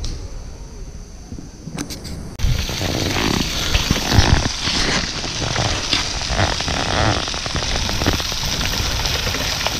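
Low wind rumble on the microphone, then, about two and a half seconds in, a steady sizzling crackle from sausages and a skillet of green peppers and onions cooking over a wood campfire.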